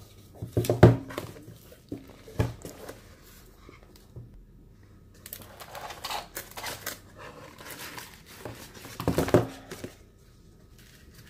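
Cardboard packaging and card inserts being handled: rustling and sliding, with sharp taps and knocks, loudest about a second in and again around nine seconds.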